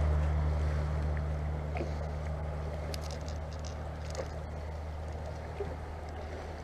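Boat motor running with a steady low hum that slowly fades, with faint ticks and light water sounds over it.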